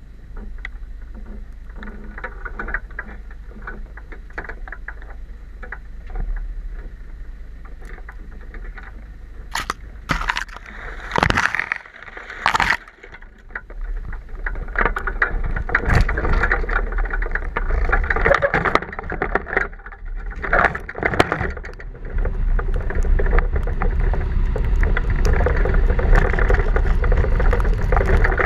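Four-wheel-drive vehicle driving on a snowy dirt road: a steady low rumble of engine and tyres, with several sharp knocks and clunks around the middle.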